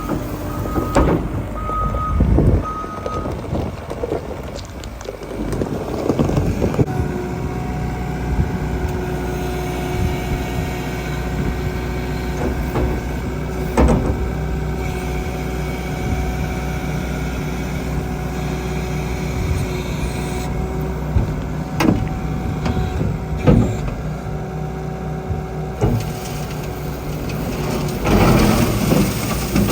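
Skid steer diesel engine running steadily while working, with its reversing alarm beeping about once a second for the first few seconds. Occasional clunks and knocks from the machine and its attachment.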